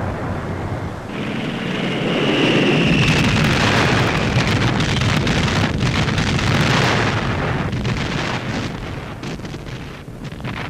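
Dense rumbling noise of a bombardment, explosions running into one another, with a faint, slightly falling whistle about two seconds in; it dies down near the end.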